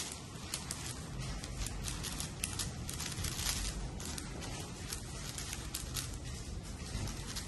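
Rapid, irregular clicking of a 6x6 speed cube's plastic layers being turned fast by hand.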